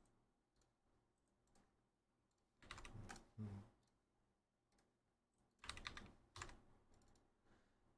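Faint computer keyboard typing and clicking in two short bursts, about three seconds in and again around six seconds.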